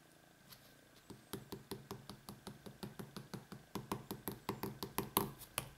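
Fast, uneven run of light taps, about six or seven a second, starting about a second in and getting louder toward the end: a pen being tapped on a tabletop to get a cat to play.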